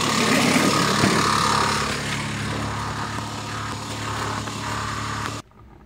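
Mitsubishi Montero's 3.5-litre V6 engine running with a loud noise from the lower front of the engine, which the mechanic traces to a slack timing belt whose tensioner has lost its pressure and strikes the metal below. It drops a little about two seconds in and cuts off suddenly near the end.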